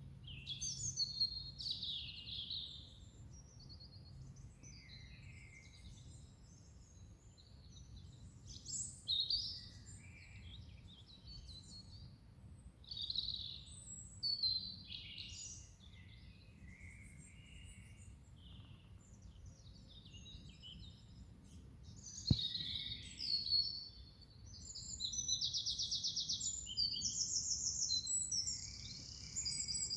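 Several songbirds singing and calling, a mix of varied short chirps and phrases over a steady low background rumble. Near the end one bird sings a long, fast trill, the loudest part, and a single sharp click sounds a few seconds before it.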